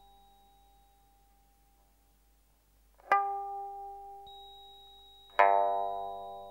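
Sparse film-score music on a plucked string instrument. A ringing note fades away into a pause, then a single note is plucked about three seconds in, and a louder, fuller note about five and a half seconds in; each rings on and dies away slowly.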